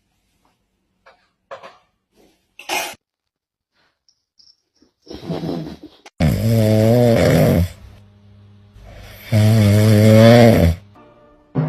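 Two loud snores, each about a second and a half long and roughly three seconds apart, each with a wavering rasp. A few faint short sounds come before them.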